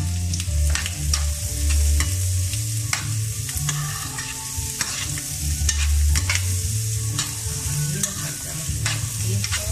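Chickpeas and diced bacon frying in a pan over high heat: a steady sizzle with frequent sharp pops and crackles, over a low hum that comes and goes.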